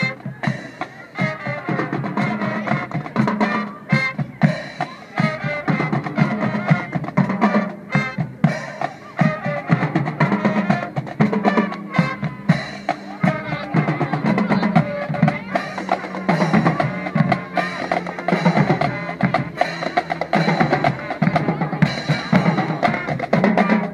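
Marching band playing as it marches, its drumline's snare and bass drums beating a steady rhythm through the music.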